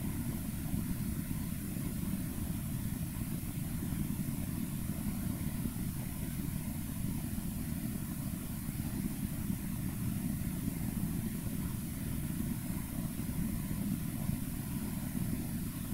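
A steady, unchanging low rumble with a faint high hiss above it, like constant background machinery or air-handling noise; no speech or other events.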